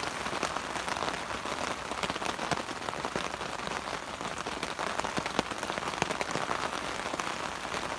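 Heavy rain falling on a camping tarp overhead: a steady hiss of rain with many sharp taps of single drops striking the sheet.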